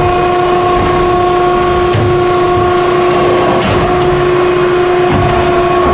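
Hydraulic blow molding machine running at a fast cycle, about 7.5 seconds per side: a steady, loud whine of several tones over a mechanical rumble, with short hissing bursts about two seconds in and again near four seconds.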